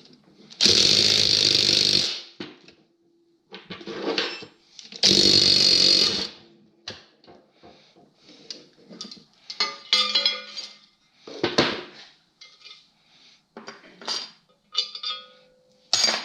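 Tools and metal engine parts clinking and knocking during a snowmobile engine teardown. Two loud rushing bursts of about a second and a half each cut in and stop abruptly, early in the stretch and again about five seconds in.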